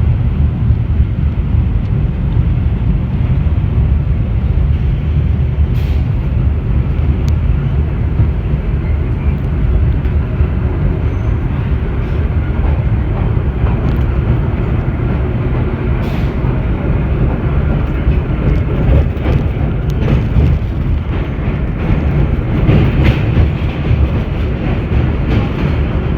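Vintage 1917 IRT Low-Voltage subway car running, heard from on board: a steady low rumble of wheels on rail, with a few brief sharp clicks scattered through it.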